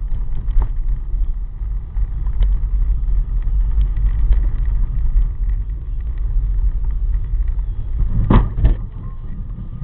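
A car on the road heard through a dashcam's microphone: a steady low rumble of engine and tyres, with two sharp knocks close together near the end.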